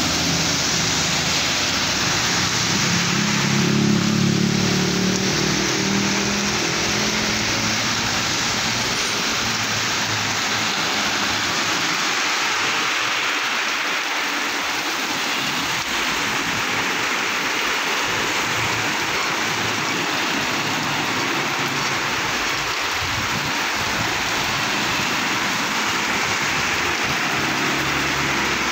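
Heavy rain pouring onto a wet road, a steady hiss. A passing truck's engine hums through the first several seconds, loudest about four seconds in, and another vehicle passes near the end.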